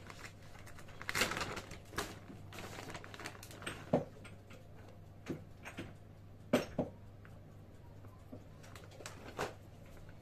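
Plastic bag of grated Emmental crinkling while shredded cheese is pinched out and sprinkled by hand, with light rustles and a few sharp taps.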